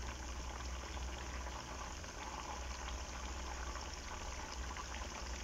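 Salmon pieces frying slowly in oil over a medium-low flame: a steady soft sizzle with faint crackles, over a low hum.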